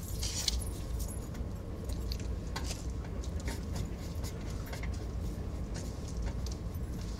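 Passenger train carriage running: a steady low rumble with scattered light rattles and clinks of loose fittings.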